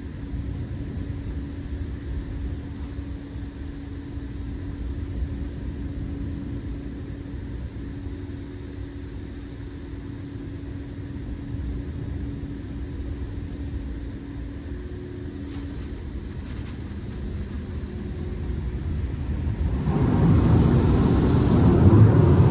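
LaserWash 360+ touchless automatic car wash running: a steady low rumble with a faint hum, then a loud rushing noise starts about twenty seconds in and keeps going.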